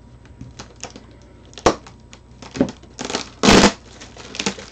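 Plastic packaging crinkling and rustling in the hands as orange packing tape is pulled off a wrapped parcel, with a sharp snap about a second and a half in and a loud rip of tape coming away a little after three seconds.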